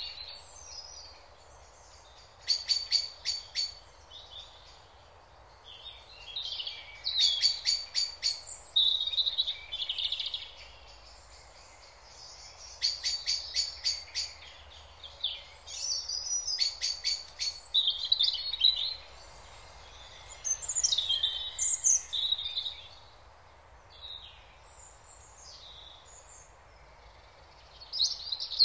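Songbirds singing: bursts of song every few seconds, several of them rapid trills, with shorter chirps and warbles in between.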